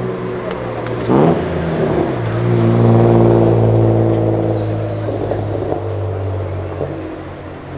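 Car engine revving with a quick rising sweep about a second in, then pulling away with a steady exhaust note that is loudest a second later and slowly fades.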